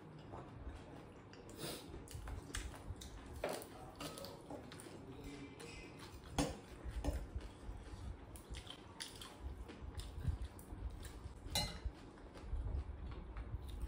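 Eating at a table: scattered light clinks of a metal spoon and fingers against glass bowls and plates, with chewing between, a few clinks sharper than the rest.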